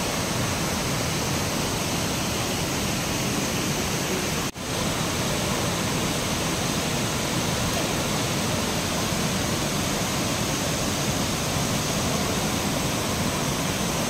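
Waterfall cascading down sloping rock slabs: a steady rush of falling water that cuts out for a split second about four and a half seconds in.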